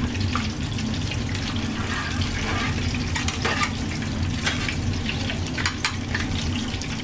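Chicken wings deep-frying in a large pot of very hot oil, a steady sizzle, with a few light clicks as they are stirred with long cooking chopsticks.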